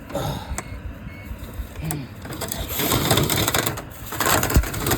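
Dryer vent cleaning: a rattling, scraping noise of lint and debris being worked through the vent duct and drawn into a vacuum. It gets louder about three seconds in.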